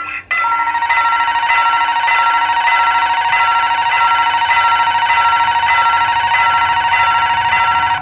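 Level-crossing warning alarm ringing steadily: a continuous electronic tone with a fast trill and a beat repeating a little under twice a second, sounding while the barriers are down for an approaching train.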